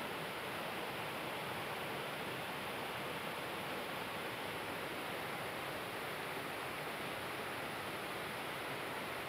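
Small rocky waterfall rushing steadily over boulders into a pool, a constant even roar of falling water.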